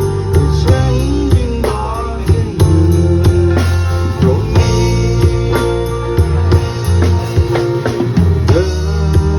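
Live band playing a song, with a steady drum-kit beat and bass under a melody that slides up and down in pitch.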